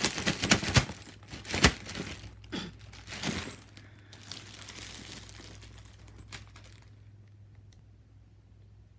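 Plastic packaging crinkling and rustling as it is unwrapped by hand, a run of sharp crackles over the first few seconds, loudest about a second and a half in, then dying down to a few faint rustles.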